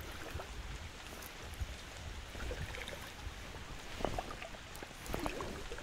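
River water flowing around a wading angler, with a low rumble underneath and a few small knocks about four and five seconds in.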